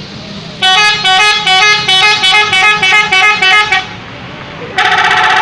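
Telolet horn of a Hasyim Asyari bus: a multi-tone musical air horn playing a quick tune of short notes. After a brief pause it gives a long, warbling blast.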